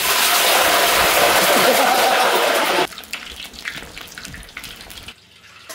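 Pork leg deep-frying in hot oil with a loud, dense sizzle that cuts off abruptly about three seconds in, followed by faint scattered clicks and taps.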